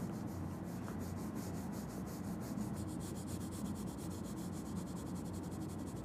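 Wax crayon rubbing across drawing paper in quick, even back-and-forth strokes, colouring in an area.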